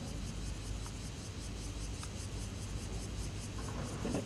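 Steady background noise: a low hum under a faint, evenly pulsing hiss, with no distinct knocks or clanks.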